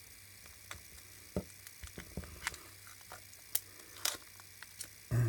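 Foil pouch of a lithium-polymer cell being cut and peeled open with side cutters: scattered crinkles and sharp clicks, a few louder snaps among them. A faint steady electronic hum runs underneath.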